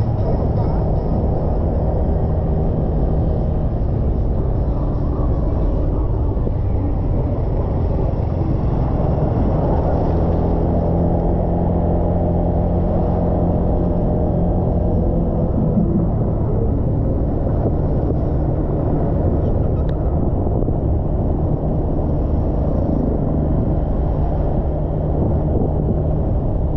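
Motorbike engine running steadily while riding along a road, with a continuous low rumble; its pitch shifts slightly about halfway through.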